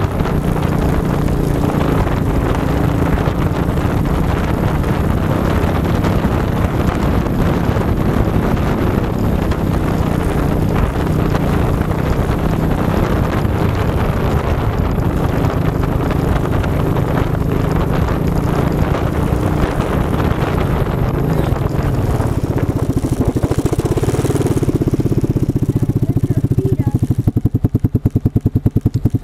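ATV engine running as the quad rides along a rough trail, with dense trail and wind noise. About 25 seconds in the noise thins out, and the engine settles into a low, evenly pulsing idle as the quad slows to a stop.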